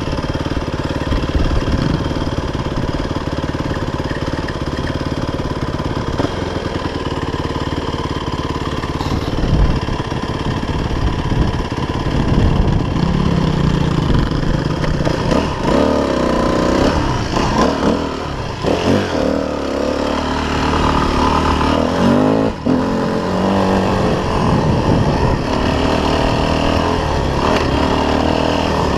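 Dirt bike engine running under load on a climb, heard from the rider's seat. The revs rise and fall repeatedly through the second half as the throttle is worked.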